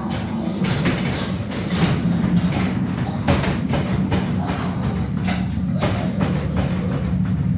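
A pneumatic Halloween zombie-crate prop running its cycle: the weathered wooden crate on its steel frame rocks and bangs with irregular knocks, over a steady low drone from the horror soundtrack of its built-in zombie video.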